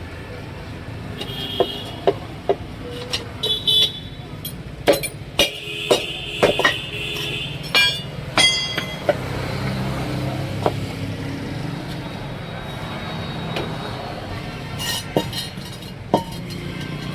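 Sharp metallic clinks and knocks of tools during tyre work, over a steady low engine hum, with a vehicle horn sounding for over a second about six seconds in and a couple of shorter toots before it.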